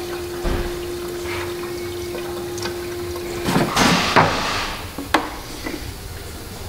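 Green coolant pouring steadily from a plastic gallon jug into a car radiator's filler neck; the pour stops about three and a half seconds in. A few handling noises from the jug follow, then a sharp click.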